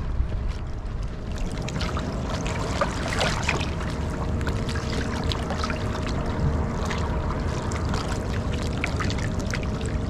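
Estuary water lapping and trickling against the stony shore in small, irregular splashes, under a steady wind rumble on the microphone.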